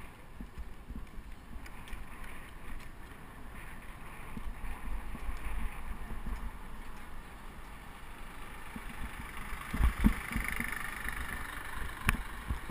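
Street traffic and rumbling ride noise from a moving bicycle, picked up by its action camera, with traffic noise swelling about ten seconds in. Two sharp thumps come about ten and twelve seconds in, the first the loudest.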